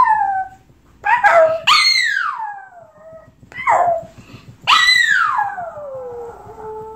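Small shaggy-coated dog howling: several howls, each jumping up and then sliding down in pitch, with short breaks between. The longest starts about two-thirds of the way in and trails off into a steady low held note.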